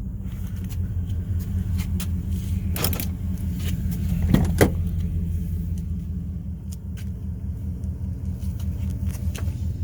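A car engine idling with a steady low hum, with a few light clicks and knocks about three and four and a half seconds in.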